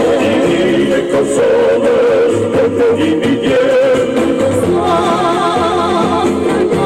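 Music with a singing voice holding long notes with a wide vibrato. About five seconds in, a higher wavering melody line comes in above it.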